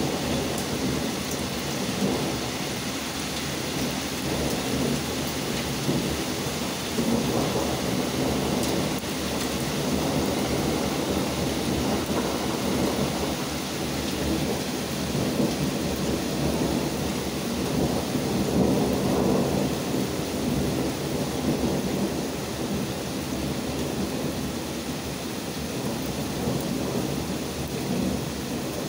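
Steady hiss of heavy rain falling, with low rumbles of thunder swelling and fading through it every few seconds.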